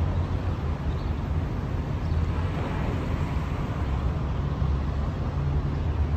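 Steady low rumble and hiss of outdoor city street noise.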